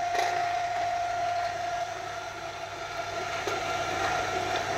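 Screw-type oil expeller pressing mustard seed, driven by a 3 hp electric motor through an inverter. It runs with a steady whine over a constant mechanical hum.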